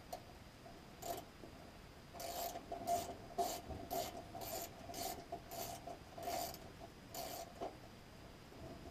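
Quarter-inch socket wrench backing a screw out of a sheet-metal air-handler access panel: about ten short rasping strokes, roughly two a second, that stop about seven and a half seconds in.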